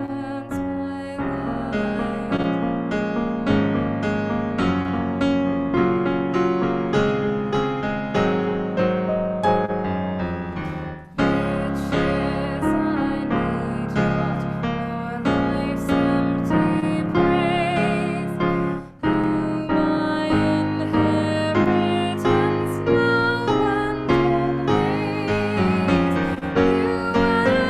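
Piano music with a steady run of struck notes, broken by two brief dips about eleven and nineteen seconds in.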